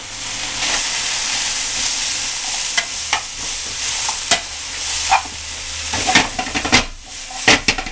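Salmon, onion and spinach frying in a pan: a steady sizzle, with scrapes and taps of a utensil stirring them, the clicks coming thicker near the end.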